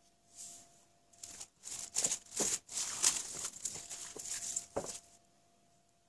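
Clear plastic film crinkling and rustling in repeated bursts as it is stretched over the mouth of a small glass jar and pressed around the rim, with a single sharp knock about five seconds in.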